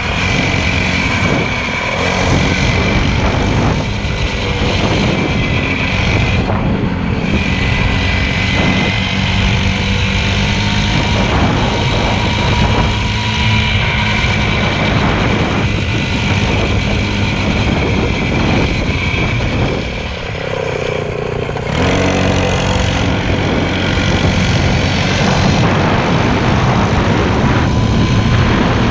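Motorcycle engine running steadily under way, with a brief drop in level about twenty seconds in.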